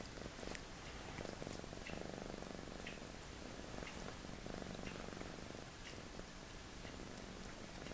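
Ragdoll cat purring close up, swelling and easing in long stretches with its breathing, with a few faint clicks.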